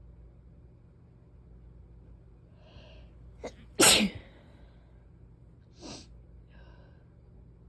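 A person sneezing once, about four seconds in, loud and sharp after a short intake of breath. A shorter breathy sound follows about two seconds later.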